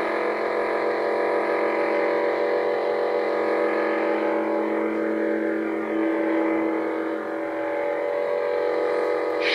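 Pixel lightsaber's SN-Pixel soundboard playing its steady idle hum: a low electric drone made of several held tones. The lowest tone fades out about seven seconds in.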